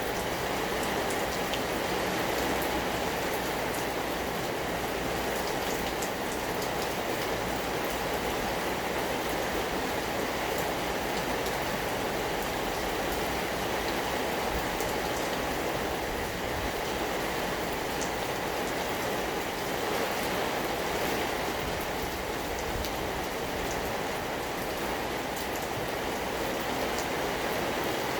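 Steady rain falling and pattering on surfaces, with fine scattered drop ticks.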